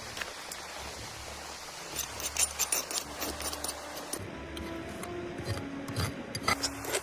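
Background music with held notes, over scattered sharp clicks and knocks.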